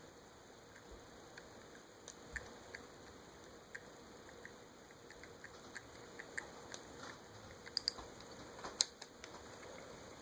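Faint, scattered small clicks and taps from hands handling small hard objects, over a low steady hiss, with a few sharper clicks near the end.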